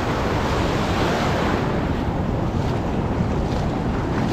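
Ocean surf washing in over a sandy beach, mixed with wind rushing across the microphone: a steady, even noise.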